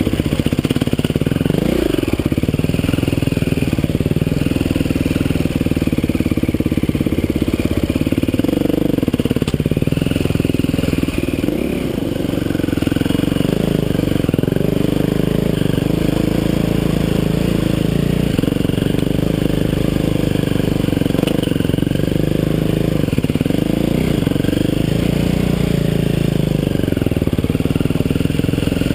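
Dirt bike engine running under load, heard from on the bike, its pitch rising and falling over and over as the throttle is opened and eased off, with a short drop in level about twelve seconds in.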